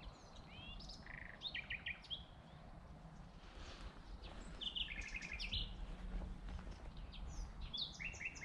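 Songbird singing in three short bursts of quick, high chirps and trills a few seconds apart; the singer is taken for a warbler.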